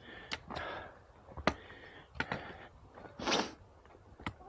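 Footsteps of a hiker climbing a forest trail: irregular sharp clicks and scuffs of boots on roots and stones, with two longer swishes, the second near the three-second mark the loudest.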